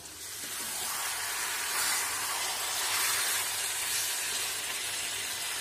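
Raw chicken pieces sizzling in hot oil and spice paste in a kadai over a high gas flame as a spatula turns them. The sizzle swells over the first second and then holds steady.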